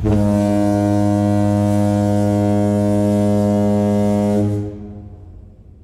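A single low, steady horn-like tone that starts abruptly, holds for about four and a half seconds, then fades away.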